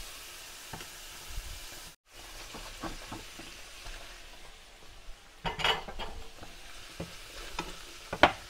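Shrimp, pork and curry paste sizzling in a frying pan while a wooden spoon stirs and scrapes through them. A louder clatter of stirring comes about halfway through, and there is a sharp knock near the end.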